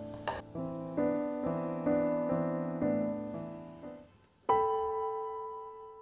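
Background piano music: chords struck about twice a second that fade out around four seconds in, then a single chord struck that rings and dies away.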